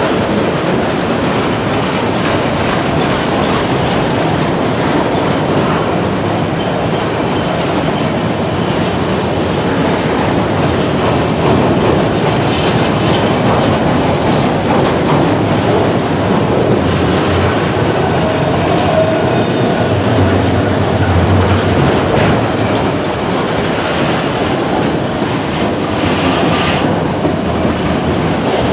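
Enclosed autorack freight cars rolling past close by: the steady rumble of steel wheels on the rails, with a running clatter of wheels over the track.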